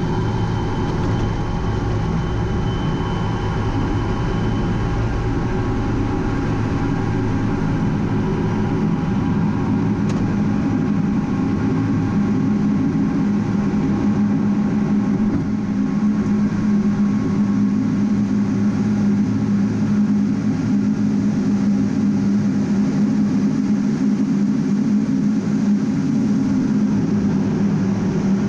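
A-10 Thunderbolt II's twin turbofan engines heard from inside the cockpit, a steady loud drone at high power through the takeoff roll and lift-off, growing a little louder about halfway through.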